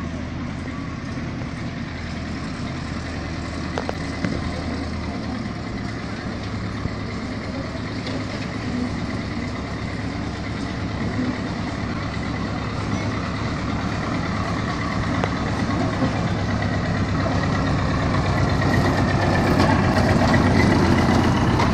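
Engine of a miniature park train running steadily as the train approaches along its track, growing louder toward the end as it draws close.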